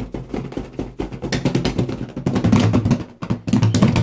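A small toy whirling inside a latex balloon as it is swirled, rattling rapidly against the rubber; the rattle grows louder about two seconds in, with a steady low hum under it.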